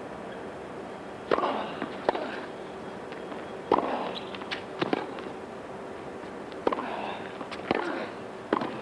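A tennis rally: the ball is struck back and forth by rackets and bounces on the court. It makes a series of sharp pocks, roughly one a second, over a steady background.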